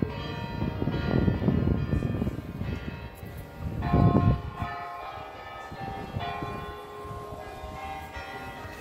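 Church bells pealing, several bells struck again and again, their tones ringing on between strikes, over a low rumble that is loudest about four seconds in.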